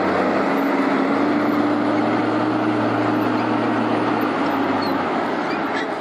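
Diesel engine of a wheeled log skidder running steadily as the machine drives, with a steady whine held over the engine note for most of the time.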